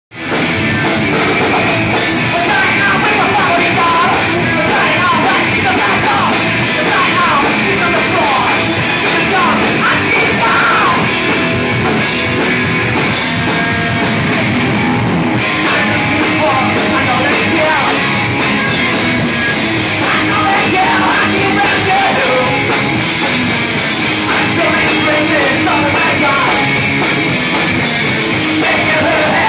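A rock band playing live and loud, with electric guitars, bass and drums.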